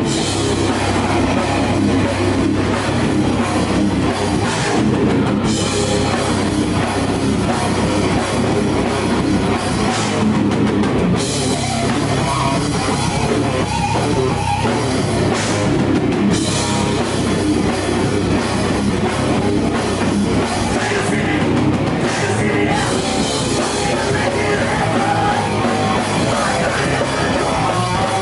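A live rock band playing loud heavy rock: electric guitars over a pounding drum kit, with no letup.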